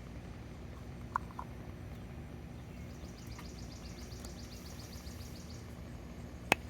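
Quiet outdoor ambience: a steady low rumble with a rapid, high-pitched pulsing trill from a bird or insect in the middle. A short chirp comes about a second in, and a single sharp click near the end.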